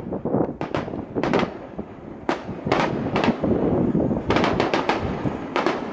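Aerial firework shells bursting one after another, sharp reports at irregular intervals over a continuous low rumble of booms and their echoes, with a quick run of several reports a little past four seconds in.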